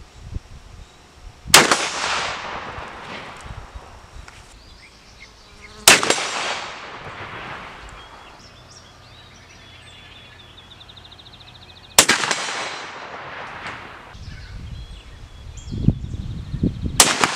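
20-gauge shotgun firing slugs, four sharp reports several seconds apart, each trailing off in a long echo; the last comes right at the end.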